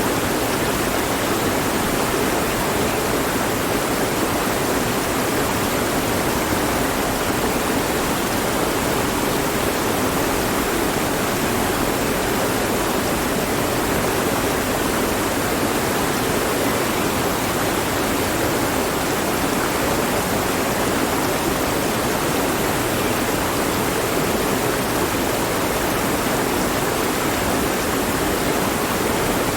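Mountain stream flowing over rocks, a steady even rush of water.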